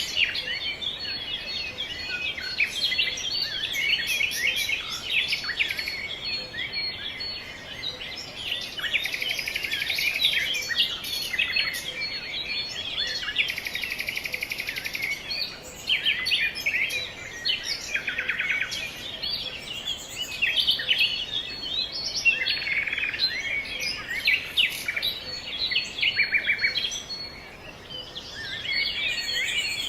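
Several small birds chirping and calling over one another without a break, with a couple of fast buzzy trills in the middle.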